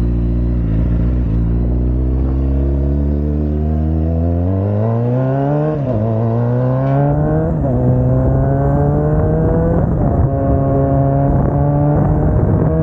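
Kawasaki Ninja sport bike engine accelerating under way: the note climbs for several seconds, drops at an upshift about six seconds in, climbs and drops at a second upshift, then holds a steady cruising note. Wind noise on the microphone runs under the engine.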